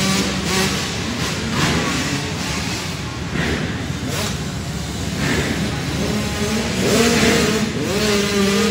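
85cc two-stroke youth dirt bikes revving hard as they pass, their engine notes surging up and down again and again, several bikes overlapping, echoing in an indoor arena.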